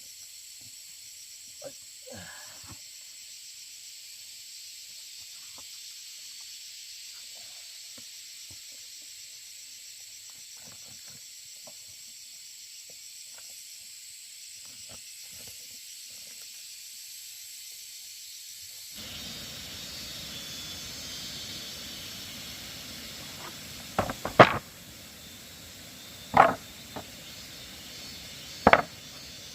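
A steady high-pitched hiss. Partway through it changes abruptly to a fuller background, followed by three sharp, loud knocks about two and a half seconds apart.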